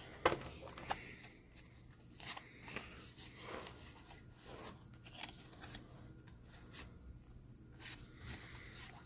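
Pokémon trading cards being thumbed off a hand-held stack one at a time: faint, irregular flicks and rustles of card sliding over card, with one sharper click shortly after the start.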